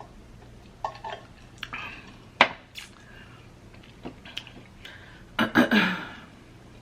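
Scattered clinks and knocks of tableware being handled, with a sharp knock about two and a half seconds in and a louder cluster of clattering near the end.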